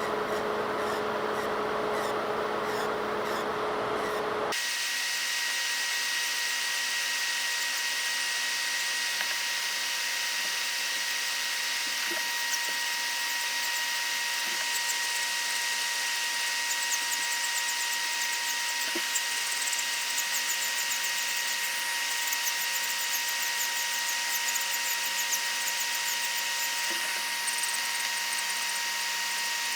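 Electric nail drill running with a steady whine, stepping up to a higher pitch about four and a half seconds in and holding there.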